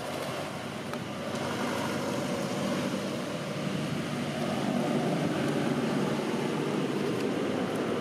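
Steady rumble of a motor vehicle engine, swelling slightly about a second and a half in.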